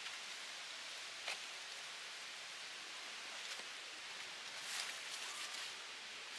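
Outdoor ambience: a steady hiss with brief rustles and crackles, one short sharp one just over a second in and a cluster of them around five seconds in.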